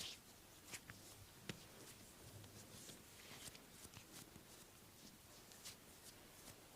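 Near silence with faint, scattered soft taps and rubbing from hands working on skin during a massage.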